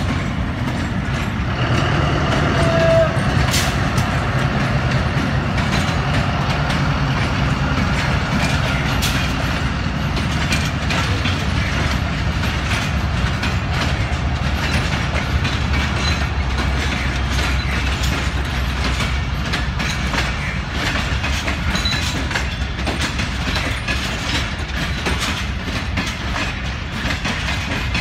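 Diesel-hauled passenger train pulling out slowly: coaches rolling past with a steady low rumble, and wheels clicking over the rail joints.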